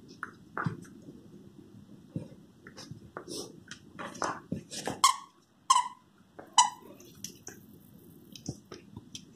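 A puppy chewing and mouthing a plush toy: scattered soft chewing clicks and rustling, with three short, high squeaks about halfway through.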